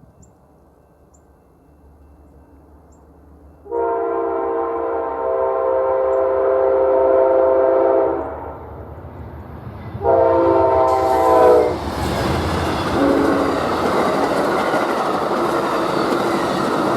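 A diesel locomotive's air horn sounds a long chord of several notes for about four seconds, then a shorter blast about two seconds later. As the second blast ends, the train reaches the crossing, and loud wheel and rail noise with a high hiss fills the rest.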